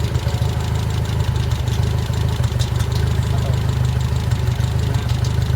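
An engine idling steadily with an even, low drone.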